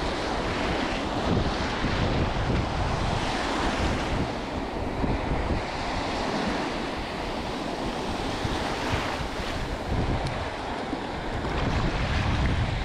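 Small sea waves breaking and washing around in shallow water, with wind rumbling on the microphone.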